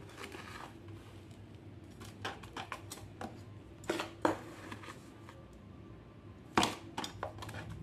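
Potting substrate being added to a thin cut-off plastic bottle held in the hand: irregular crackles and sharp taps of the plastic and soil, louder about four seconds in and again near the end.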